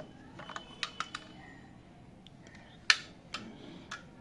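Scattered light clicks and taps of an action camera's waterproof case being handled, with one sharper click about three seconds in.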